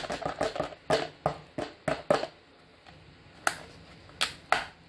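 Thin clear plastic deli-cup lid being pried off by hand: a quick run of sharp plastic clicks and crackles over the first two seconds, then three separate clicks near the end.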